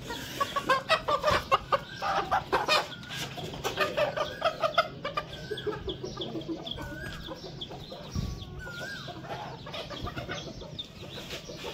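Chickens clucking and squawking as they are handled and put into a coop. The first half holds a run of short clatters; after that come a few short calls that rise and fall in pitch.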